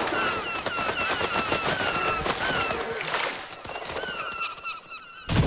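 A large flock of cartoon seagulls squawking over one another in short repeated calls, over a fast clatter of flapping wings. A single loud thump near the end.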